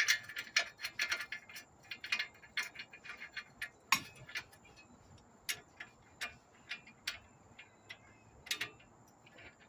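Large ratchet wrench clicking as a bolt is run down: quick runs of clicks for the first few seconds, then single clicks about half a second to a second apart.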